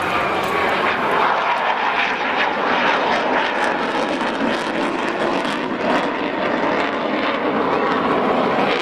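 Single-engine F-16 fighter jet flying past overhead: loud, steady jet engine noise.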